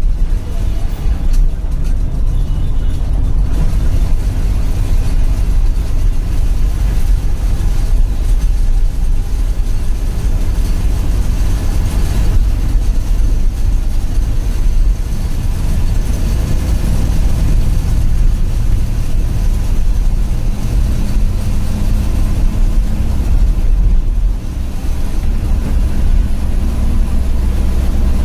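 Bus diesel engine running steadily under way, heard from inside the driver's cabin, a loud low drone with road and tyre noise over it.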